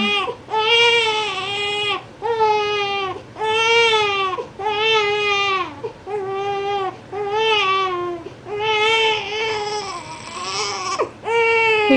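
A 7-week-old baby boy crying: a string of fussy wails, each about a second long, with brief breaths between.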